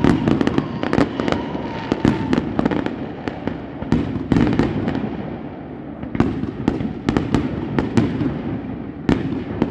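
Aerial fireworks shells bursting: many sharp bangs in quick succession over continuous crackling, with a steady whistle during the first couple of seconds.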